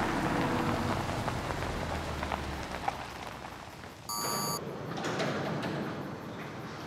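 A car's engine running low as the car pulls up. About four seconds in comes a short electronic beep, followed by the noise of a motorised roll-up garage door starting to open.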